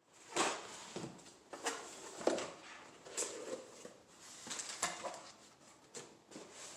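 Bike parts and packaging being handled on a workbench: a string of irregular knocks, clicks and rustling, some sharp, with a few scraping sounds.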